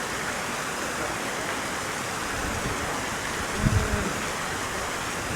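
Steady rushing of flowing river water, with a brief low thump about two thirds of the way through.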